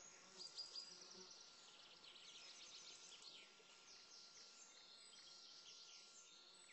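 Near silence, with faint, high, quick chirps repeating throughout over a faint steady hiss.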